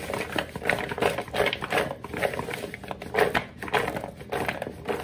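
Chunks of raw potato, carrot and onion tumbling and rattling in a plastic mixing bowl as it is shaken to coat them in oil, in a quick irregular series of two or three tosses a second.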